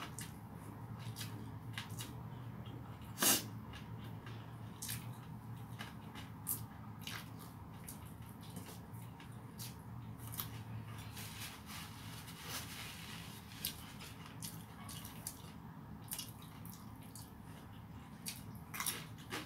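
Close-up eating sounds of a person eating rice with her fingers: wet chewing and lip-smacking clicks, with one louder click about three seconds in.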